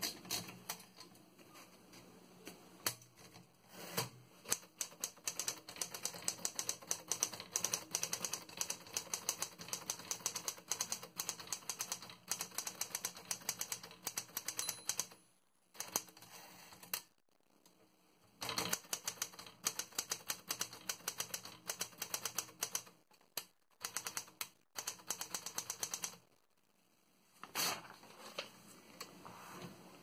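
1936 L.C. Smith & Corona Standard portable typewriter being typed on: fast runs of keystrokes, the typebars clacking against the platen. The runs are broken by a few pauses of a second or two in the second half.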